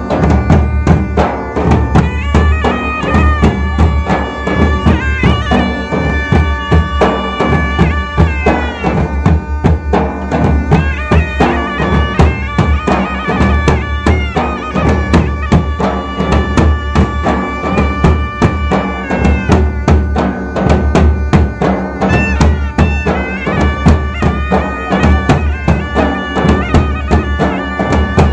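Traditional Konkani festival band: a sanai (shehnai) plays a held, stepping reed melody over fast, continuous dhol drumming with a deep pounding beat.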